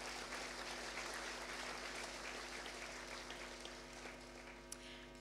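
Audience clapping, fairly faint, dying away near the end, over a steady electrical hum.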